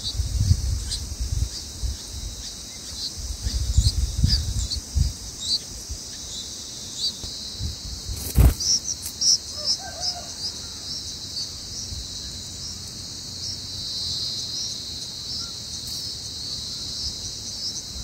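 Bulbul nestlings begging at the nest: many short, high-pitched cheeps, thickest in the first half and again near the end, over a steady high insect drone. Low rumbling in the first few seconds and one sharp click about eight seconds in.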